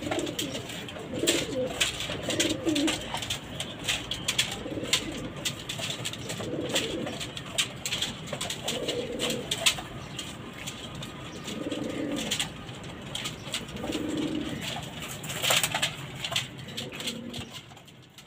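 Caged domestic pigeons cooing, low coo calls repeating every couple of seconds, with scattered short clicks and taps among them.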